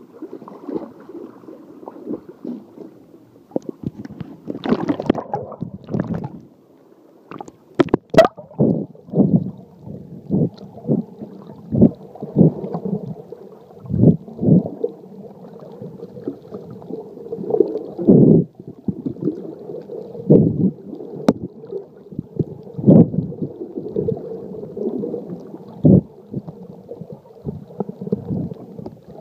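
Muffled water sounds picked up by a phone in a waterproof case held under water: irregular gurgling and sloshing in uneven surges, with a few sharp clicks about eight seconds in.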